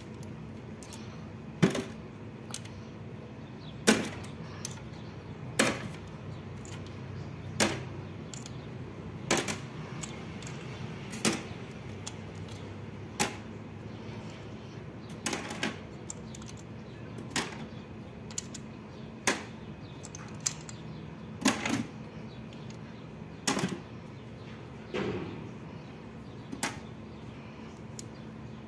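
Sharp metallic clicks, about one every two seconds, as rocker arms are taken off a Chevrolet Spark's cylinder head one at a time, over a faint steady hum.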